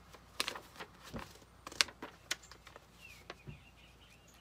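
Paper brochure being handled and unfolded: a series of sharp, irregular crackles and rustles of stiff paper, the loudest a little under two seconds in.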